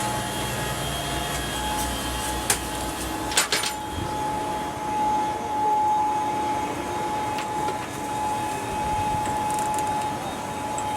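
Steady ventilation noise inside the International Space Station, a constant fan-like whirr and hiss with a steady whine joining in about a second and a half in. A couple of sharp clicks come around three seconds in.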